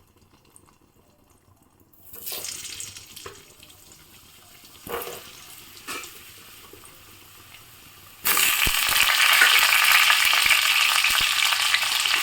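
Hot mustard oil in a kadai starts crackling faintly about two seconds in, with a few sharp clicks. About eight seconds in it breaks into loud, steady sizzling as the cut vegetables go into the hot oil to be fried.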